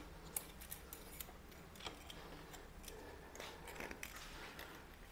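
Faint, scattered clicks and light metallic ticks of hand tools and small bottom-bracket parts being handled, a few at a time with quiet between.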